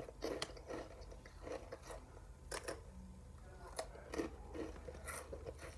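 Mouths crunching and chewing Takis rolled tortilla chips: faint, irregular crisp crunches, one or two a second.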